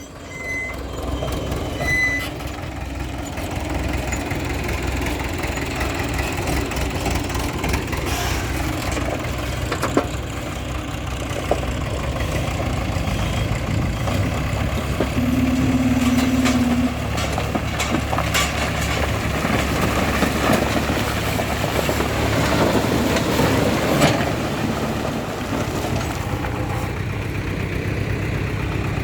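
Heavy diesel machinery engines running steadily, with a few sharp clanks and a short steady tone about halfway through.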